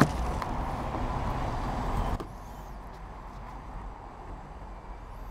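Cordless drill running under load, its bit boring through a rusted metal lawnmower bracket backed by a wooden block, to take a 5 mm bolt; the drilling stops suddenly about two seconds in.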